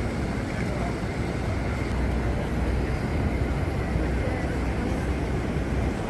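Steady outdoor city ambience: a continuous low rumble of engines and traffic with indistinct voices mixed in.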